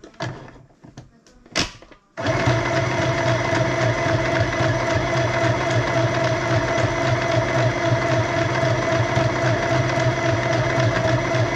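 Small electric sewing machine running steadily as it stitches through fabric, starting suddenly about two seconds in after a few light clicks of handling.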